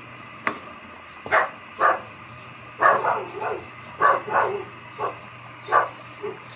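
A dog barking, about eight short barks, some in quick pairs, starting about a second in. A single sharp clink, like a metal ladle striking the pan, comes about half a second in.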